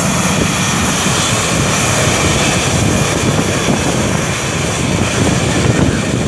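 Twin rear-engined jet airliner's engines running as it taxis and turns onto the runway: a loud, steady rushing noise with a low rumble underneath.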